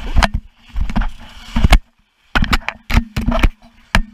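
A run of irregular sharp knocks and thumps, with a low steady hum under them and a brief break of near silence about halfway through.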